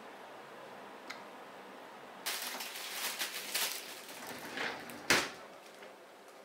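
Plastic bag wrapped around a bunch of green onions crinkling for about two seconds, then a single sharp thump about five seconds in as the refrigerator door is pulled open.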